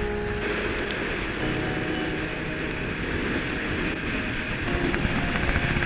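Steady wind buffeting the microphone, with a constant rush of noise.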